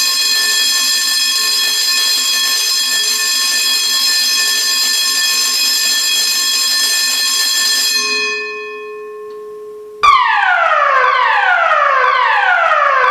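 Building fire alarm system sounding its evacuation tones: a steady, shrill alarm tone that fades out after about eight seconds, then, about ten seconds in, a repeating falling tone that sweeps downward once a second. This falling tone is the standard German evacuation signal (DIN 33404-3).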